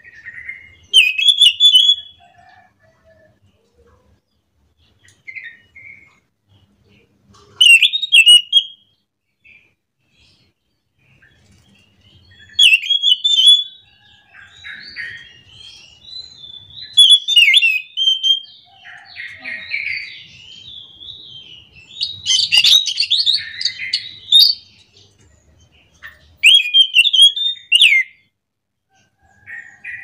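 Caged anis macan (chestnut-backed thrush) singing: loud, warbling phrases with pauses between them, then a long, nearly unbroken run of song through the middle of the stretch before it breaks into separate phrases again.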